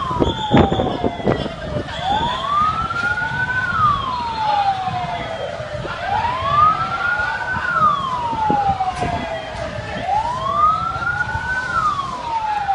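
Emergency vehicle siren wailing in slow cycles, rising and then falling in pitch about once every four seconds. A few sharp knocks come in the first second.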